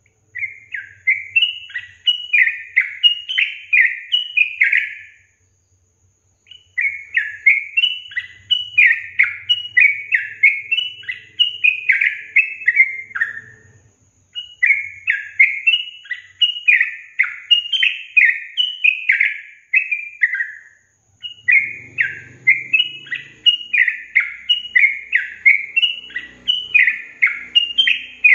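Yellow-vented bulbul (trucukan) song: bright, bubbly chattering phrases of quick notes repeated rapidly. It comes in four bouts of several seconds each, with brief pauses between them. This is a lure recording meant to prompt other trucukan to answer and sing.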